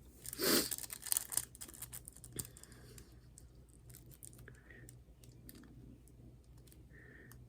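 Faint handling noise: a short rustle, then a quick run of light clicks and scattered ticks, like small objects or paper being handled on a table.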